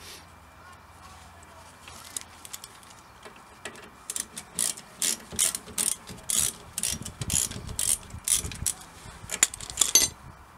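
Ratchet socket wrench clicking in repeated back-and-forth strokes while undoing a brake caliper bolt. The strokes start about four seconds in, come about two a second, and stop just before the end.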